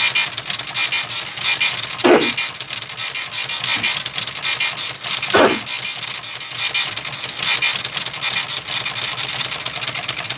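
Epson TM-U220PD dot-matrix receipt printer printing, its impact print head making a continuous rapid buzzing chatter. Two brief falling whirrs come about 2 and 5 seconds in, and the printing stops abruptly at the end.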